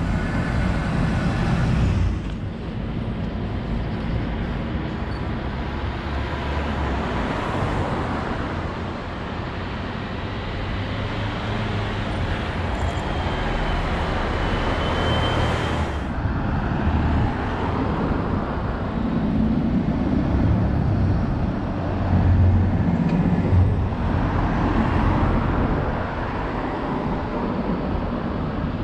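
Double-decker buses and a coach passing along a city street: engine and tyre noise swelling and fading as each goes by, over steady traffic hum. The sound changes abruptly twice.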